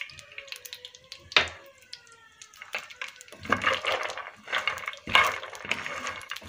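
Almonds being stirred in a heavy frying pan with a wooden spatula as they toast in a spoonful of oil: a dry rattling and scraping in repeated strokes from about three and a half seconds in. A single sharp knock comes earlier, about a second and a half in.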